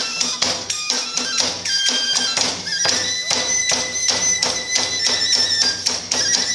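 Iwami kagura hayashi accompaniment: drums beaten in a fast, driving rhythm with clashing hand cymbals, while a bamboo flute holds long high notes over them.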